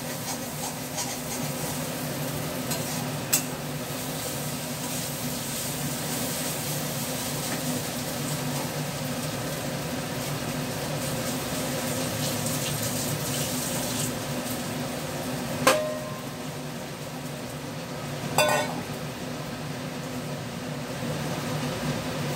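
Food sizzling in a metal kadai on a gas stove while it is stirred with a metal spatula, with a steady low hum underneath. A few sharp metal clanks on the pan, the loudest about 15 and 18 seconds in.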